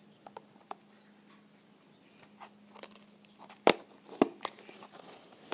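Plastic blind-bag wrapper being worked at by hand as it resists opening: scattered faint crinkles and clicks, with two sharper snaps a little over halfway through.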